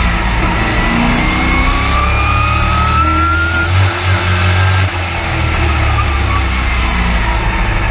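Race truck's engine heard from inside the cab under racing load, with a whine rising in pitch for the first few seconds. There is a brief break in the sound about four seconds in, then a steady note.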